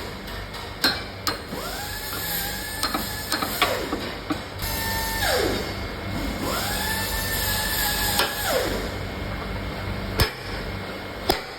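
Small power tool motor whining up to speed, holding, then winding down, about three times. Several sharp knocks are heard around it, a pair about a second in and two more near the end.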